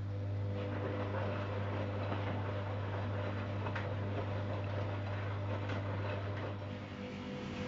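Zanussi Jetsystem Turbodry ZWD 1000 washing machine running: a steady low hum under a rushing, swishing noise with a few clicks. The hum breaks up and turns rougher near the end.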